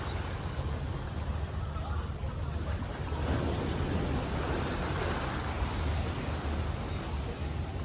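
Wind buffeting the microphone with a steady low rumble, over the wash of a calm sea against the shore.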